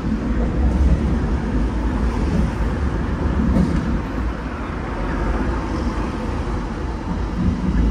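Hong Kong double-decker tram running along its tracks, heard from on board: a steady low rumble of the wheels on the rails and the car body.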